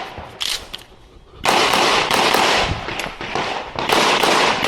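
Glock pistol shots: a few sharp cracks in the first second, then after a short lull, from about 1.5 seconds in, a dense loud din with many cracks running through it.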